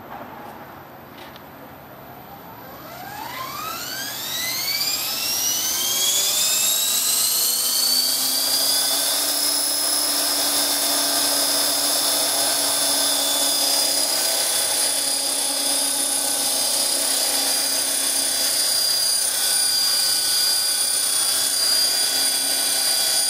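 Electric 450-size RC helicopter spooling up. The motor and rotor whine rises in pitch from about two and a half seconds in and levels off after about eight seconds into a steady high whine at flying speed.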